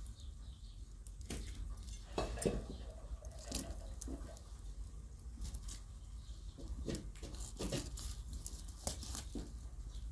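Small wood fire crackling in a hearth, with irregular sharp pops and snaps.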